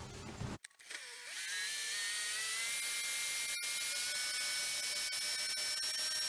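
Heavy truck's diesel engine running while its air compressor builds brake pressure toward governor cutout, played back at 16x speed so it comes out as a high, steady whine. It starts about a second in, and its tones slowly climb in pitch.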